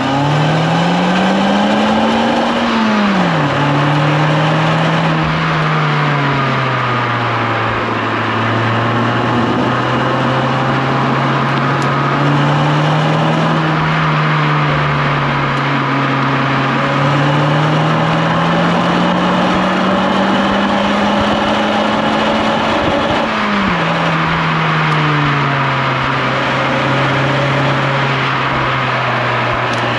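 Suzuki Swift Sport's 1.6-litre four-cylinder engine pulling hard through the gears: the revs climb and drop sharply at an upshift about three seconds in, hover and waver at mid revs, then climb slowly for several seconds and drop again at a second upshift.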